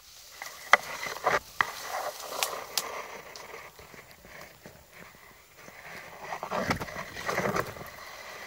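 Dry grass rustling and crackling close to the microphone, with several sharp clicks in the first three seconds and a louder rustle about seven seconds in.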